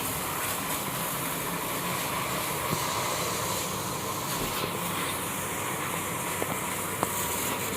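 Water jet spraying onto a motorcycle during a wash, a steady hiss.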